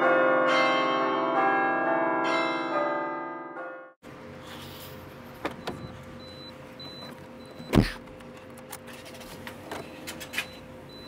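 Chiming, bell-like music rings for about four seconds and cuts off abruptly. Then comes quieter outdoor background with scattered clicks and knocks, and a single loud thump a little before eight seconds in.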